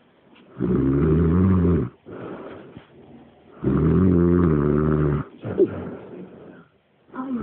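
Heavy snoring: two loud, drawn-out pitched snores about three seconds apart, with quieter breathing between them, and a third snore starting right at the end.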